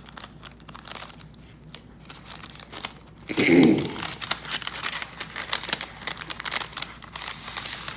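A small gift bag being opened and its packed paper items pulled out: light rustles at first, a loud handling bump about three and a half seconds in, then steady crinkling and rustling of paper and wrapping.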